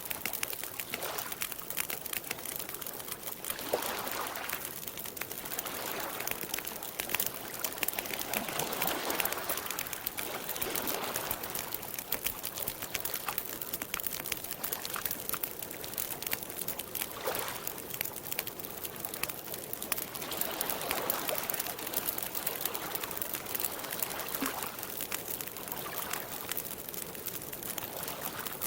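Campfire crackling with many small pops, over gentle water lapping and trickling at a lake's edge.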